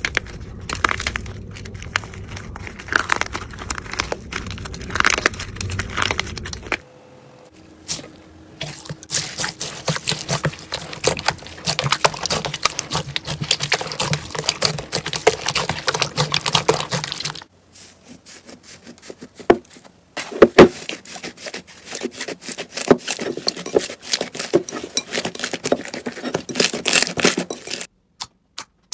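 Hands squeezing and pressing slime, starting with a slime under a hardened, cracked crust that crackles as it breaks, then sticky slime giving dense crackling and popping. Sound changes at each cut between slimes, and there are a few loud sharp pops about two-thirds of the way in.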